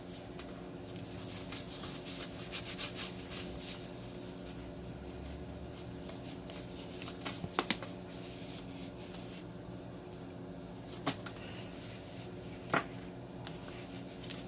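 Hands rubbing and wiping sticky residue off a wiring-harness cable: soft rustling and rubbing with a few sharp clicks and knocks, over a steady low electrical hum.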